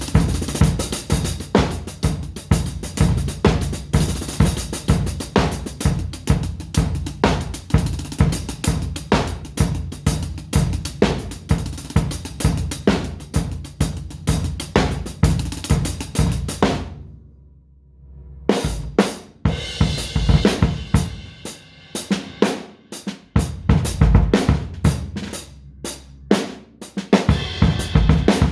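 Drum kit played with snare, bass drum, hi-hat and cymbals in a steady, fast groove. It breaks off for about a second past the halfway point, then resumes with looser, sparser hits.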